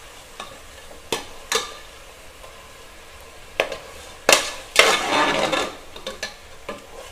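Metal spatula scraping and knocking against an aluminium pressure cooker as mutton pieces are mixed through a thick tomato-onion masala, over a faint steady sizzle. Several sharp knocks come, with a longer scrape about five seconds in.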